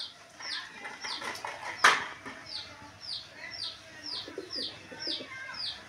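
Chicken chicks peeping in a steady series of short falling chirps, about two a second, with one sharp knock about two seconds in.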